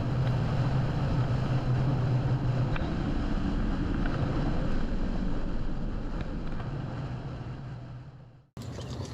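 Motorcycle engine running at road speed under heavy wind rush on the microphone, with a steady low drone; the sound fades away over the last few seconds.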